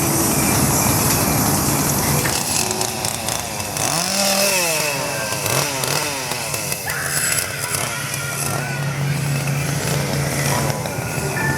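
A scare actor's chainsaw running steadily, revved up and down several times around the middle.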